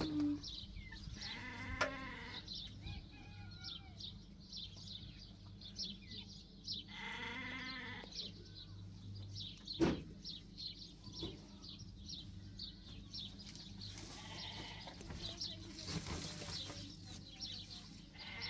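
Sheep or goats bleating: several drawn-out bleats a few seconds apart, over a constant patter of faint, short, high chirps. A single sharp knock sounds about ten seconds in.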